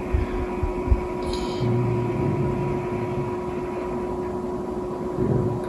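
A sleepy man's low, drawn-out mumble as his sheep count trails off past 906 into an indecipherable drone. It sits over a steady room hum carrying a faint steady high tone, with a few soft low thumps in the first second.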